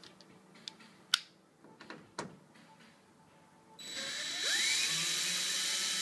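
A cordless drill-driver backs screws out of a microwave's sheet-metal casing. Its motor runs for about two seconds near the end, with a whine that rises as it spins up. A few sharp clicks come earlier.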